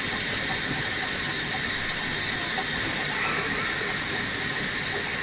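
Chicken pieces frying in oil under a glass lid, a steady sizzle.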